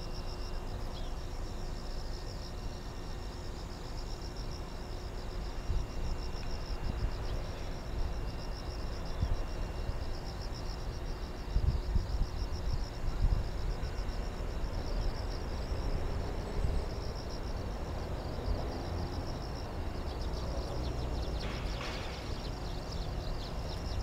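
Insects in the grass trilling steadily in a fast, high-pitched pulsing chorus, over a low rumble that swells briefly about halfway through.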